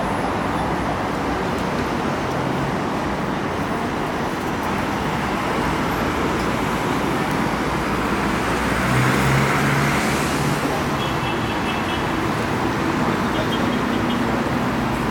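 Road traffic noise from a busy street: a steady wash of passing vehicles, with one engine growing louder about nine seconds in and fading again a couple of seconds later.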